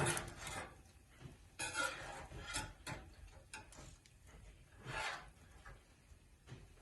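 A utensil scraping and rubbing under the oven-baked fish in its pan to loosen it so it does not stick, in several short scrapes with a few light clicks, the longest scrape about five seconds in.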